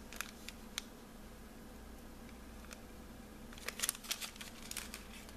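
Clear plastic packaging of satin hearts crinkling as it is handled: a few short crinkles near the start and a denser run of crinkles about four seconds in, over a faint steady hum.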